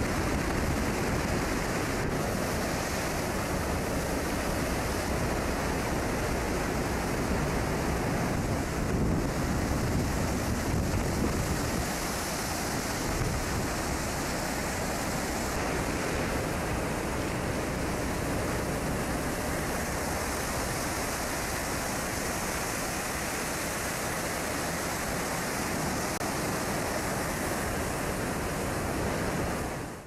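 Heavy seas breaking over a bulk carrier's deck and rail, with white water rushing across the deck, heard as a steady roar of surf mixed with wind on the microphone.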